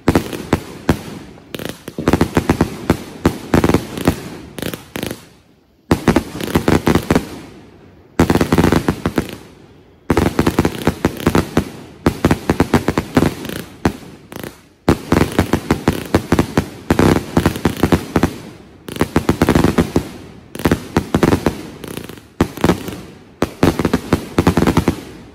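Three Dead Heat firework cakes firing together: rapid sharp bangs of shells launching and breaking, with crackle, in dense volleys broken by short pauses every few seconds. The bangs are very loud.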